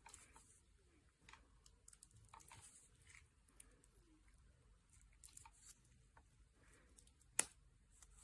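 Faint handling noises: scattered soft crackles and ticks, with one sharp click about seven seconds in.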